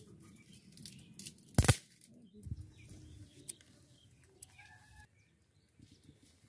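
Hard-boiled eggs being cracked and peeled by hand over a steel plate and basin: a sharp knock about one and a half seconds in, then softer taps and clicks.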